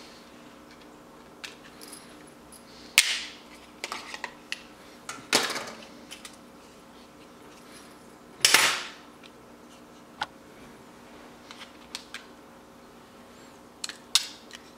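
Small hard parts of a Ricoh Theta V camera under disassembly clicking and clacking as they are handled and set down on a hard tabletop: scattered light clicks and a few louder sharp clacks, the loudest about two-thirds of the way through.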